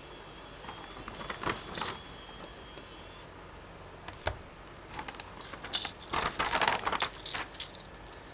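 Laptop reassembly handling: a faint, steady high whine for about three seconds that stops abruptly, then a sharp click and a run of small clicks and rattles of parts and screws being fitted.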